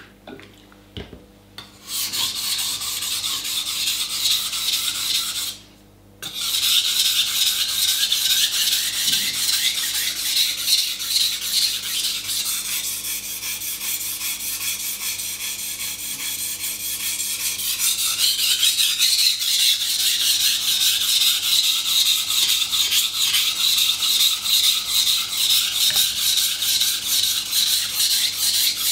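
Steel kitchen knife blade being sharpened on a wet 400-grit water stone: steady, rapid back-and-forth scraping strokes of steel on stone. They start about two seconds in and stop briefly about five and a half seconds in.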